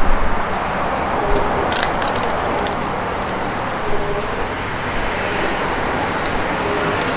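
Steady road traffic noise, with a few sharp crinkles and clicks of thin plastic bags of dipping sauce being tied off with rubber bands.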